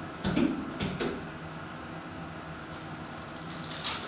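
Plastic-foil trading-card pack wrapper crinkling near the end as a hand picks a pack up off the stack, after a quiet stretch of room tone. A few soft handling noises come in the first second.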